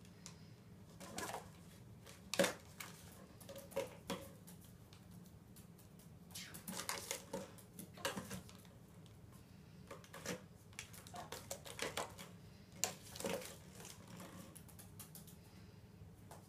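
A parrot's beak and feet tapping and clicking on a kitchen bench and the plastic bottles on it, in irregular taps and light scrapes, over a low steady hum.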